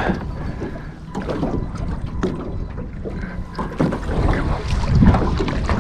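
Wind on the microphone and water moving around a small fishing boat, with scattered light knocks and clicks.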